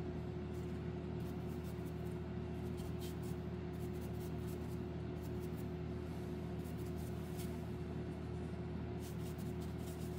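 Steady low hum in a small room, with faint scattered taps and scratches of a flat paintbrush dabbing wash onto model-railway ballast.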